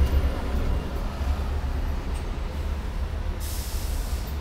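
Steady low rumble of a Hong Kong double-decker tram and the street traffic around it, heard from the tram's upper deck, with a brief hiss near the end.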